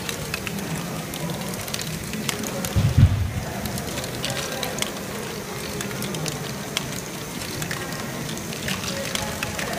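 Lego Great Ball Contraption modules running: small plastic balls and Lego parts click and rattle through the mechanisms in a dense, irregular patter over a steady low hum. A louder low thump comes about three seconds in.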